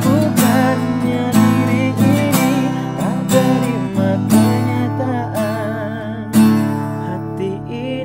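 Acoustic guitar strummed in chords, with voices singing a melody over it.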